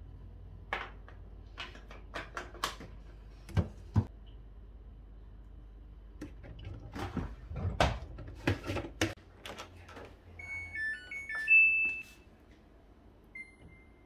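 Plastic clicks and knocks as the detergent drawer's insert is snapped back in and the drawer is pushed shut on a Samsung front-loading washing machine. Then the machine's control panel gives a run of short electronic beeps as its buttons are pressed to set a program.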